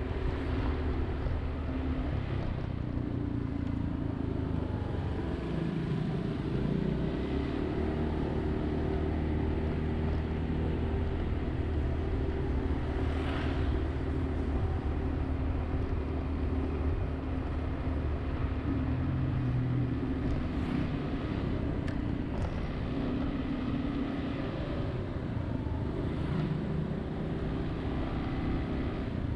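City road traffic: vehicle engines running steadily, their pitch shifting as they speed up and slow down, with other vehicles passing now and then.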